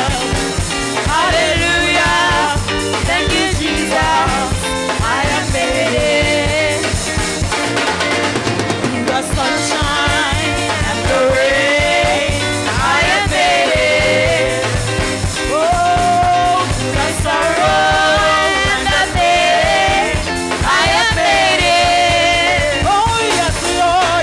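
Live gospel praise-and-worship music: women's voices singing into microphones over a band with drum kit, amplified through the church's sound system.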